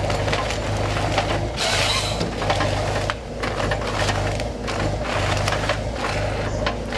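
Forestry harvester working a log with its Log Max harvesting head: the machine's engine runs steadily underneath while louder bursts of feeding and cutting noise, with cracks and clicks of wood, come about every three seconds.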